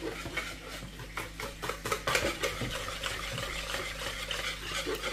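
Wire whisk beating eggs and flour into a batter in a plastic bowl: quick, repeated clicking and scraping strokes of the whisk against the bowl.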